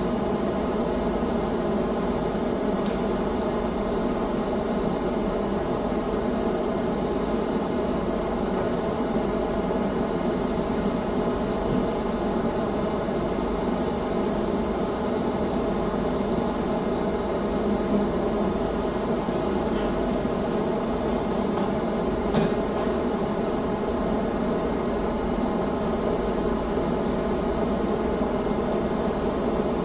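Steady room hum with no music or speech, and a faint click about 22 seconds in.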